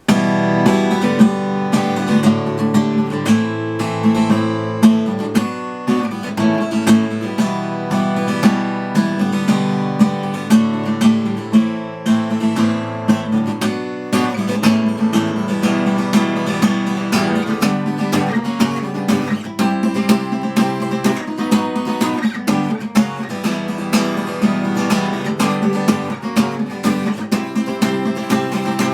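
Acoustic guitar strummed in a steady rhythm, an instrumental introduction with no singing.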